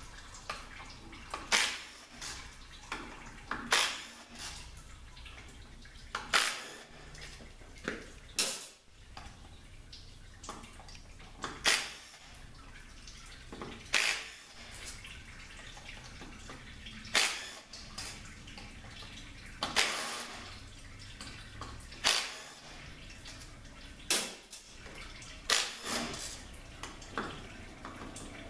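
Short, sharp metallic clicks and clinks, about one every two to three seconds, as the valve-body bolts are worked out of a Mercedes 722.6 automatic transmission and handled on a steel bench.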